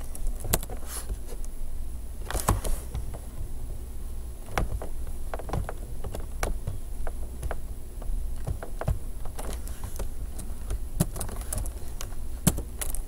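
Computer keyboard keys clicking in irregular, scattered keystrokes and small runs, over a steady low hum.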